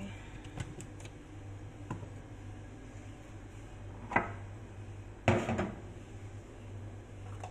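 Kitchenware handled on a granite countertop: a few light clicks, then two sharp knocks about a second apart as a mug is set down, over a low steady hum.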